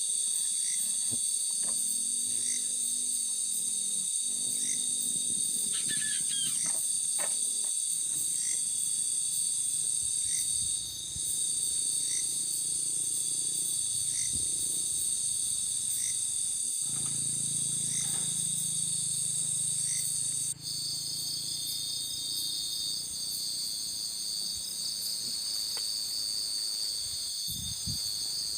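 Steady, high-pitched chorus of insects such as crickets, with a faint regular tick about every second and a half; the pattern of the chorus changes abruptly about two-thirds of the way in.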